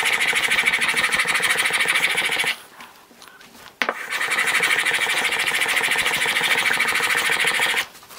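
Wood chisel held in a Veritas Mk2 honing guide, stroked rapidly back and forth on a wet 3000-grit Japanese water stone: the steel bevel rasping against the stone. Two spells of strokes, broken about two and a half seconds in by a short pause that ends with a click, then stopping just before the end.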